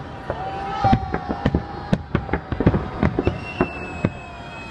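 Fireworks salute bursting: many sharp bangs in quick, irregular succession, some close together in clusters. A long steady whistling tone runs over the bangs, lower in the first half and higher near the end.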